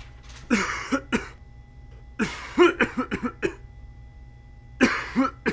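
A person coughing in three bouts: a few coughs about half a second in, a longer run of rapid coughs around two seconds in, and a shorter bout near the end.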